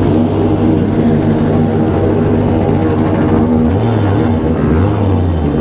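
Many motorcycle engines running together in a slow-moving pack, the nearest a straight-piped Honda Hornet. The engines rev up and back down a couple of times in the second half.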